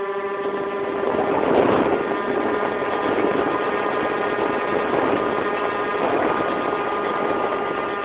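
Twin electric motors and propellers of a Multiplex Twinstar II RC model plane humming at a steady pitch in flight, heard from a phone riding on board, with air rushing over the microphone.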